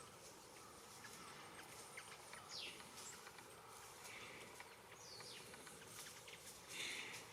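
Faint wild bird calls: two short downward-sliding calls a few seconds apart, scattered brief chirps, and a short, noisier call near the end.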